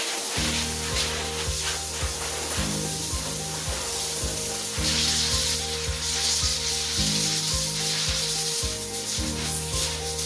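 Air-fed spray gun hissing steadily as it is worked over a timber door, getting louder for a couple of seconds midway, over background music with a steady low beat.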